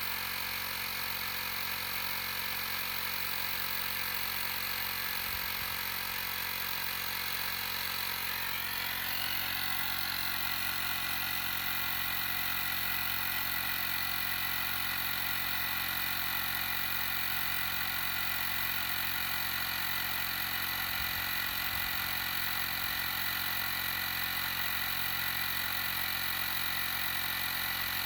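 TackLife portable tire inflator's small motor-driven air compressor running steadily while pumping up a car tire, its pitch shifting slightly about a third of the way in.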